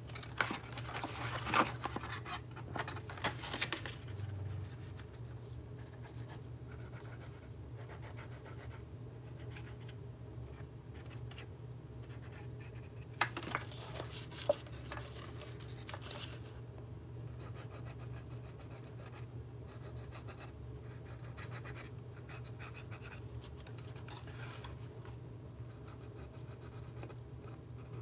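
Cardstock paper being handled and slid over a cutting mat, scraping and rustling for the first few seconds, with a few small taps a little past the middle. A faint steady low hum runs underneath.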